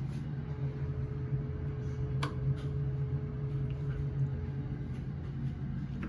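A steady low mechanical hum with a faint constant whine above it, and a single sharp click about two seconds in.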